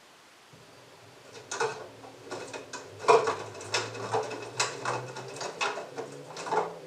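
LG front-loading washing machine: the drum motor starts up with a low hum about half a second in, and the wet clothes tumble in the drum with irregular thuds and slaps.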